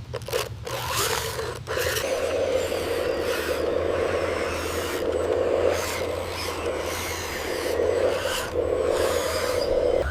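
RC construction machine scraping through soil and gravel over a steady low motor hum. The sound breaks off briefly a few times in the first two seconds.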